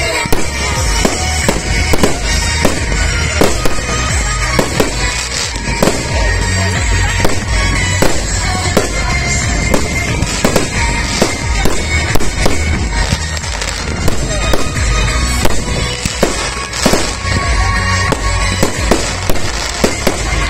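Aerial firework shells bursting in quick succession, many sharp bangs and crackles a second, over music.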